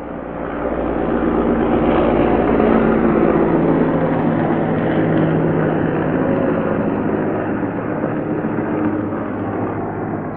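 Heavy military transport helicopter flying, its rotors and engines making a steady, loud drone with low humming tones. The sound swells over the first second or two, holds, and eases slightly toward the end.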